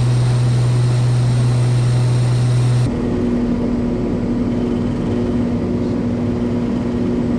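Cabin drone of a Cessna 340A's two Continental TSIO-520 piston engines and propellers, steady and loud. About three seconds in it changes abruptly to a slightly quieter drone with a different pitch.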